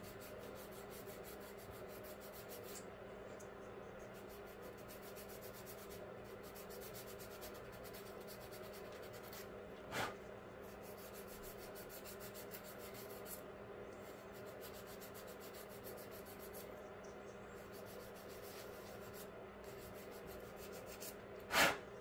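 Light sanding of the seam on a glued-together model car tire with a hand-held sanding stick: a steady, soft rasping over a faint steady hum. A sharp tap comes about ten seconds in, and a louder one near the end.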